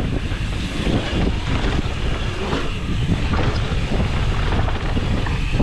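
Mountain bike riding fast down a dirt trail: a steady rush of wind on the microphone and tyres on dirt, with small knocks and rattles from the bike over the ground.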